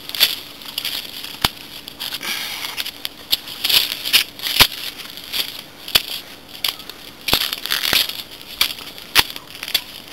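Footsteps crunching on dry leaves and loose stones along a dirt path, in an uneven walking rhythm with several sharp clicks. A faint steady hum runs underneath.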